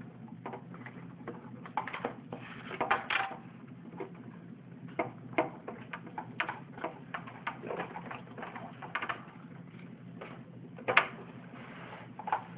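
Small plastic clicks and scrapes at irregular intervals as wire connectors are pulled off the back of a computer's circuit board, over a steady low hum.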